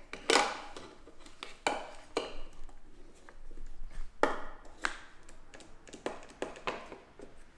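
Wooden strips being handled and set down on a workbench: about seven sharp knocks and clacks, the loudest near the start and about four seconds in.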